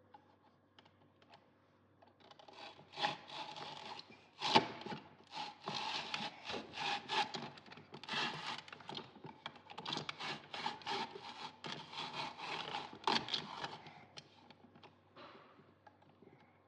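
Quick, repeated scraping and rubbing strokes, like food being worked by hand on a kitchen surface. They start about three seconds in, include one sharp knock, and die away near the end.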